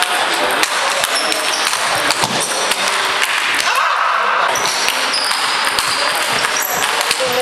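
Table tennis rally with hardbat rackets: the ball clicks off the bats and the table in quick irregular succession, over steady hall noise with a few short high squeaks.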